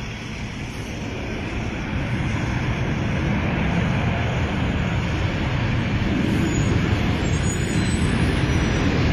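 Steady engine noise with a low rumble, growing louder.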